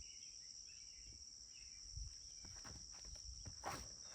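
Faint, steady high-pitched insect chirring, typical of crickets, with soft low rustles and one sharp click about three and a half seconds in.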